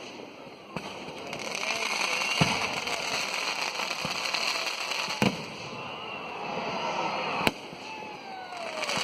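Fireworks going off: about five sharp bangs spaced a second or two apart over a steady crackle and hiss. The last two bangs are the loudest.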